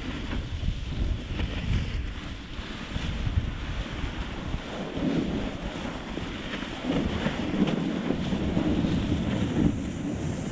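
Wind buffeting an action camera's microphone while skiing along a traverse track through snow. It is a steady rushing noise that swells a little around the middle and again later on.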